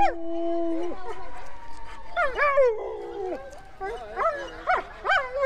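Siberian husky howling: a long, steady howl that ends about a second in, then a gliding call, then several short rising-and-falling yips and woo calls.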